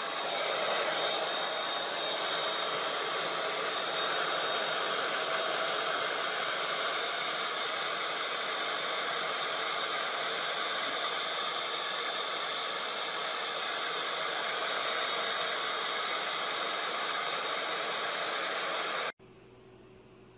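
Handheld electric hair dryer running steadily: a constant rush of blown air with a faint high whine. It stops abruptly about a second before the end.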